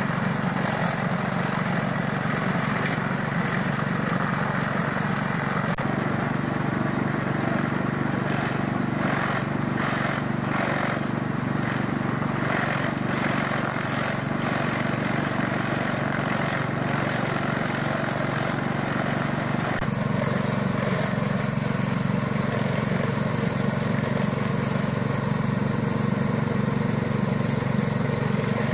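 Small petrol engine running steadily, driving a chaff cutter that shreds plant stalks and leaves as they are fed into it.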